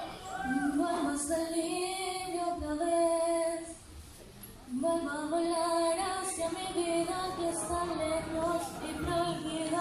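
A teenage girl singing solo into a handheld microphone through a PA system, in long held phrases with a brief pause about four seconds in.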